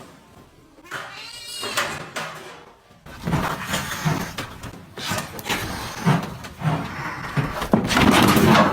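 Cat meowing about a second in, followed by a longer, louder stretch of rough noise that grows loudest near the end.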